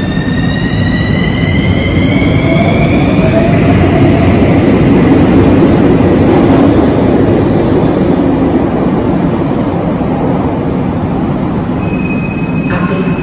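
Bucharest Metro CAF train on the station track: an electric traction-motor whine rising in pitch over the first few seconds, then a loud rail rumble that peaks around the middle and slowly eases off. A steady high beep starts near the end.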